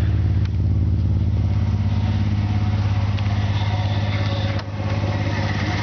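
1997 Audi A4's 2.8-litre 12-valve V6 idling roughly with a steady pulsing beat and a sucking sound from the intake. It is misfiring across several cylinders, with codes for misfires on cylinders 2 to 6, even with a new coil pack and plug wires. The running briefly drops about four and a half seconds in.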